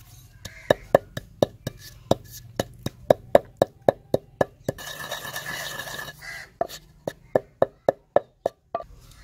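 Wooden pestle pounding cumin seeds in a stone mortar, sharp knocks at about four a second. The pounding breaks off for about a second of rasping noise halfway through, then resumes.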